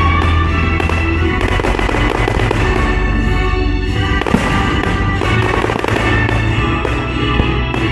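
Many fireworks bursting and crackling in quick succession, with a sharp bang about four seconds in, over classical music.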